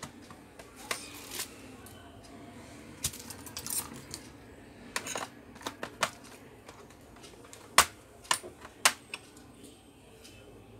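Plastic snap clips of a Toshiba Satellite C660 laptop's bottom access cover clicking and snapping as the cover is pried off with a thin pry tool. The clicks come irregularly, the sharpest about eight seconds in.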